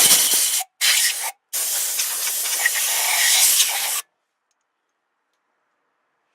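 Three bursts of hissing spray, the last lasting about two and a half seconds.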